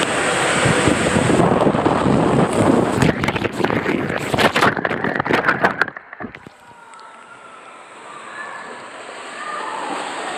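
Rushing water and rumble of a rider sliding fast down an enclosed turbo tube water slide, with a rattle of sharp knocks from about three to six seconds in as the body is jolted through the tube. About six seconds in the noise drops away suddenly, leaving a quieter hiss that slowly builds again.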